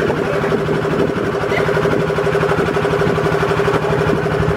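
Outboard motor of a small wooden river boat running steadily under way: a constant, even engine drone with rapid firing pulses and no change in pitch.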